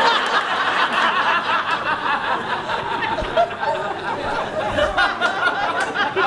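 A club audience laughing together at a punchline: many voices chuckling and laughing at once, a steady wave of laughter with no break.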